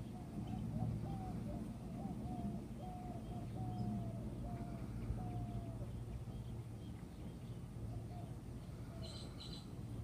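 Honey bees humming at a crowded hive entrance: a steady low drone. Over it comes a run of short, slightly sliding tones through the first six seconds, and two brief ticks near the end.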